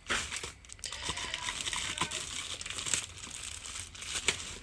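Packaging crinkling and rustling as it is handled, with scattered small clicks and crackles.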